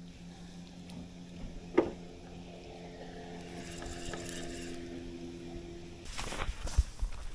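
Spinning reel being wound in with a steady whir of gears, after a click about two seconds in. The whir stops near the end, followed by irregular clicks and knocks of tackle handling.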